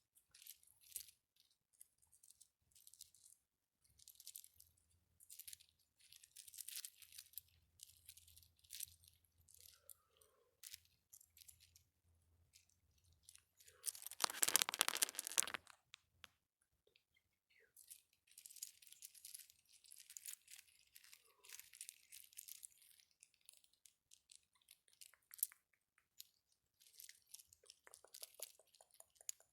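ASMR trigger objects handled close to the microphone: bursts of crisp crackling and crinkling, with a louder, longer crunch about fourteen seconds in.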